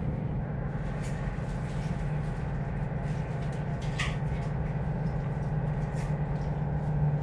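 Steady low drone of the ship's running machinery, heard from inside a cabin below deck, with a few faint clicks.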